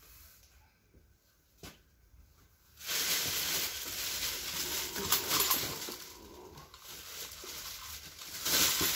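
A single click, then a thin plastic bag rustling and crinkling as it is handled, starting about three seconds in, easing off for a while and rising again near the end.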